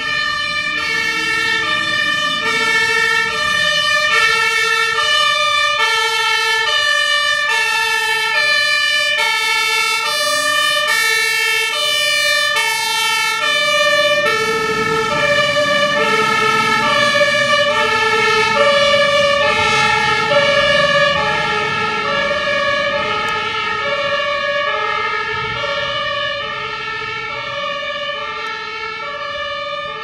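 German fire engine two-tone siren (Martinhorn) alternating steadily between a low and a high note. About halfway through, a second fire engine's two-tone horn joins out of step with the first, along with louder diesel engine noise as the trucks pull out. The sirens fade slightly near the end as the vehicles drive away.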